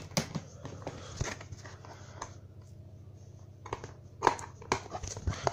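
Handling noise from plastic DVD box sets: scattered clicks and knocks as the cases are opened and moved about, with a quieter stretch in the middle and a few sharper clicks near the end.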